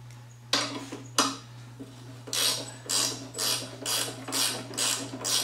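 Ratchet wrench worked back and forth on a bolt holding the mower deck's belt cover, a rasping click run on each stroke, about two strokes a second, starting about two seconds in. Before that come two sharp clacks of the tool.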